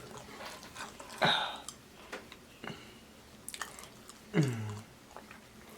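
Close-miked chewing and mouth sounds, with small wet clicks and smacks. About four seconds in there is a brief low hum that falls in pitch.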